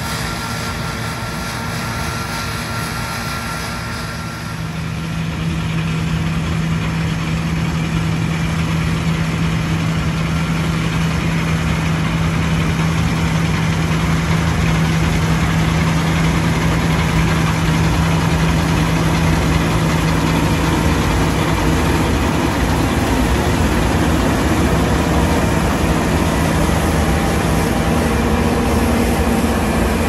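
John Deere T560i combine harvester running under harvesting load while cutting wheat: a steady engine and machinery drone with a strong, even low hum. It gets louder about four seconds in and stays loud as the machine comes close.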